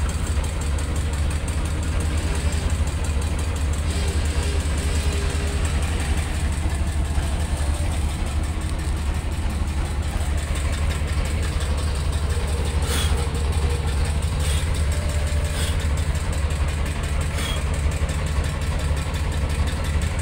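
A boat engine idling steadily with an even low throb. A few sharp knocks come through in the second half.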